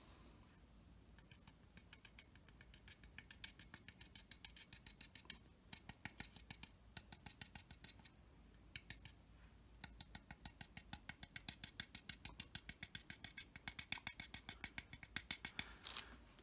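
Paintbrush dabbing and stippling oil paint onto a plastic scale model: faint, quick scratchy taps, several a second, in runs with short pauses between them.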